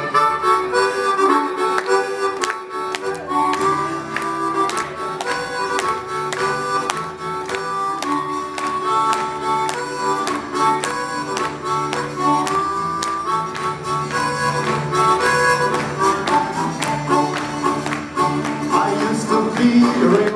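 Chromatic harmonica playing the melody over strummed acoustic and 12-string guitars and a bass guitar, in a steady rhythm: a live band playing an instrumental passage of a country-folk song.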